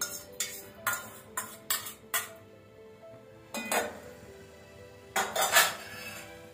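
A steel perforated skimmer clinks against the rim of an aluminium saucepan about six times in quick succession as cooked chana dal is tipped into it. Two longer, noisier sounds follow later, with soft background music throughout.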